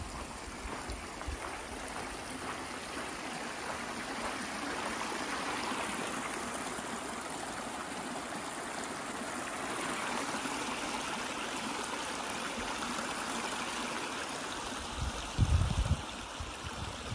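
A small mountain creek running over rocks: a steady sound of flowing water. A few short low thumps near the end.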